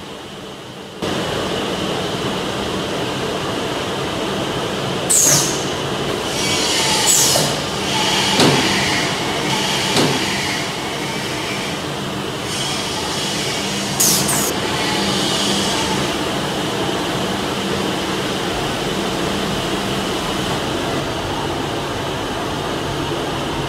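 SM-1325R1B CNC nesting router running: a steady machine noise with a constant high whine, starting suddenly about a second in, and several brief high-pitched sweeps.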